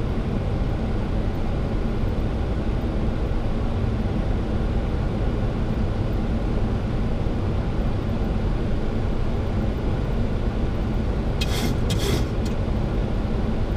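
Steady cockpit noise of a Boeing 737-800 on final approach: the rumble of airflow and engines. Two short bursts of hiss come near the end.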